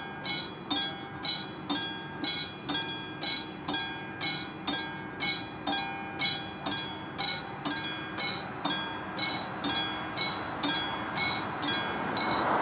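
Railway level-crossing warning bell ringing steadily, about three strikes every two seconds. Near the end a rising rush of noise comes in.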